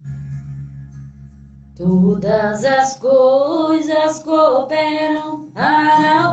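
A woman singing a worship song into a handheld microphone. A low steady tone comes first, and her voice enters about two seconds in, with long, bending sung notes.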